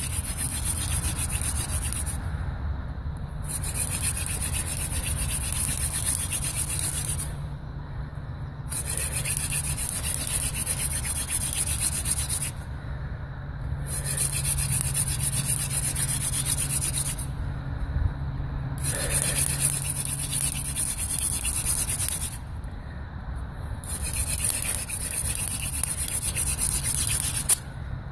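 Hand drill for friction fire: a mullein and willow spindle grinding in the hearth board's socket as it is spun between the palms, a steady dry rubbing. It comes in runs of about four seconds with a short break roughly every five seconds, six breaks in all, as the hands return to the top of the spindle. The hearth is smoking and building up dust, working toward an ember.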